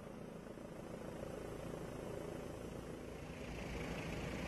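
Helicopter engine and rotor noise heard from inside the cabin: a steady mechanical noise that grows a little louder about three seconds in.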